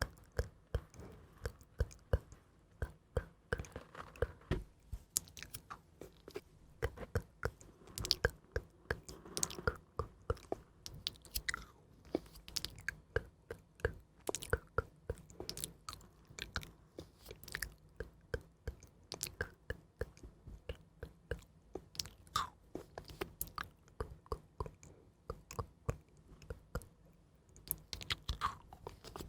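Close-miked ASMR trigger sounds: a continuous, irregular run of soft, crisp clicks and crackles, several a second.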